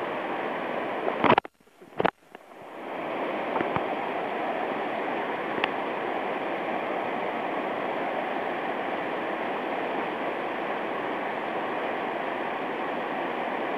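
Fast, swollen mountain stream rushing steadily after typhoon flooding. A little over a second in, the sound cuts out between two sharp clicks and fades back in about a second later.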